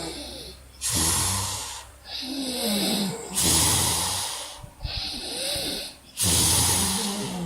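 Loud, deliberate snoring put on for a snoring contest. There are three harsh rasping snores on the in-breath, about two and a half seconds apart, each followed by a quieter breath out with a wavering, whining pitch.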